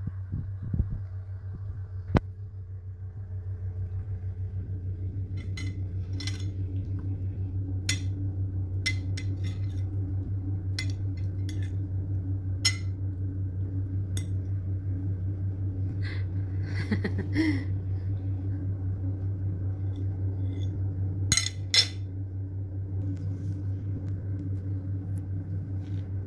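A cat eating chopped hard-boiled egg off a china plate: scattered small wet clicks of chewing and licking, with now and then a light clink on the plate. Under it runs a steady low hum with a fast, even flutter.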